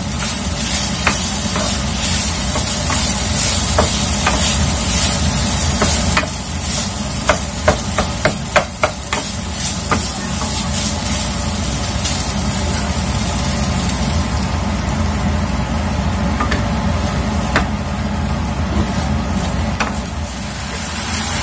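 Wooden spatula stirring and scraping minced chicken and mixed vegetables in a nonstick wok as the oyster sauce, thickened with cornstarch, sizzles and cooks down. Scattered sharp knocks of the spatula against the pan, with a quick run of them about eight seconds in.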